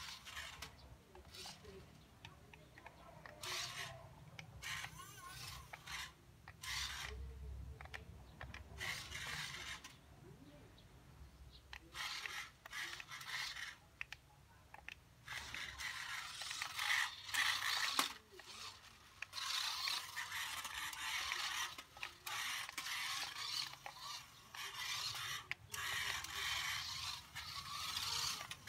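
A toy RC car's small electric motor, run on a higher voltage than stock, whirring as its tyres scrape over rough concrete, in repeated bursts as it starts, stops and turns. The bursts come closer together and louder in the second half.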